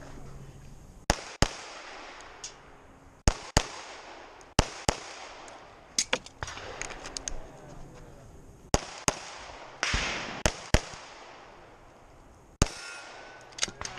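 Glock semi-automatic pistol firing a stage string: about fifteen sharp shots, mostly as quick pairs (double taps) with pauses of a second or more between pairs, each shot followed by a short echo.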